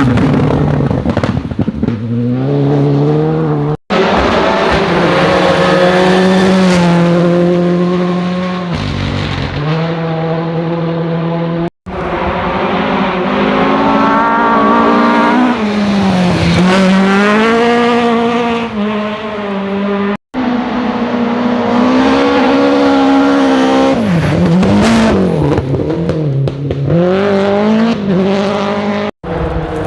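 Rally cars at full attack on a stage, their engines revving hard and dropping in pitch again and again through gear changes and corners. Several separate passes are cut together, each ending in a sudden break before the next car.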